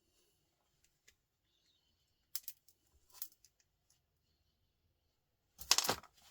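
Small pliers working a scrap part apart: a few faint clicks, two sharper clicks in the middle, then a louder scraping snap near the end.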